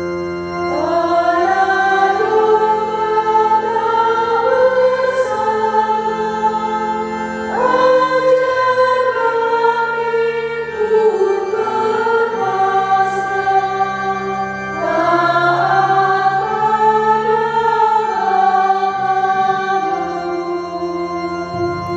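A choir singing a slow hymn in three long, sustained phrases. The second phrase begins about seven seconds in and the third about fifteen seconds in.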